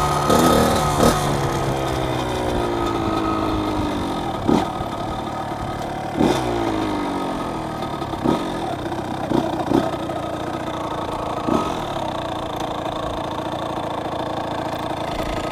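Dirt bike engine running at low revs as the bike rolls slowly, with a series of short throttle blips, each dropping back in pitch. The engine sound stops abruptly near the end.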